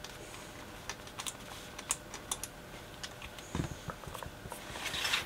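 Light clicks and taps of fingers handling wires and small parts inside an open metal-cased power supply, with a soft knock about three and a half seconds in.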